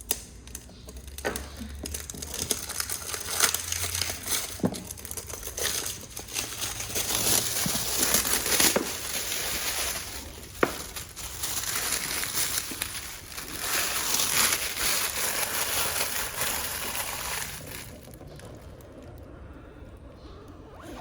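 Packaging of a new mechanical keyboard being unwrapped and handled: crinkling and rustling with scattered sharp clicks and knocks, busiest in the middle and settling down near the end.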